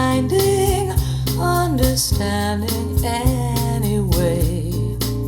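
A recorded song with a singer's voice over bass and percussion, played back through an Elekit TU-8900 tube amplifier with 2A3 output valves and Vifa two-way speakers.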